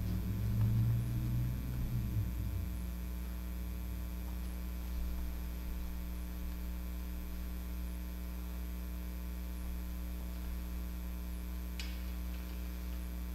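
Steady electrical mains hum, with a low rumble in the first couple of seconds and a faint click near the end.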